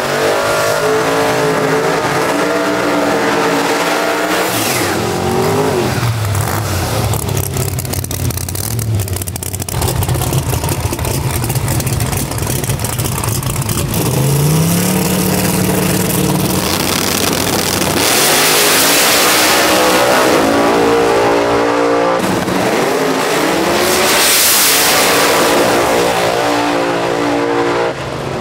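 Drag-racing cars' engines revving at the starting line, then launching and running at full throttle down the strip; the engine note climbs in pitch over and over as they pull through the gears.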